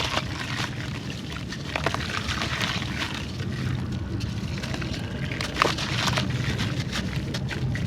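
Gritty sand-textured clay crumbling and dipping into water. A steady low wet sound runs under scattered crackles, with crisper snaps about two seconds and five and a half seconds in.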